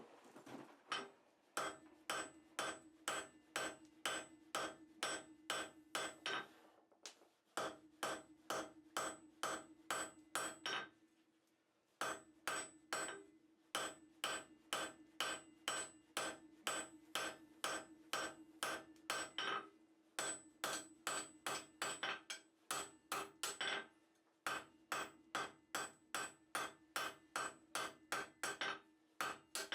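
Hand hammer striking hot steel on an anvil at about two to three blows a second, in runs broken by short pauses, with a steady metallic ring carrying between the blows.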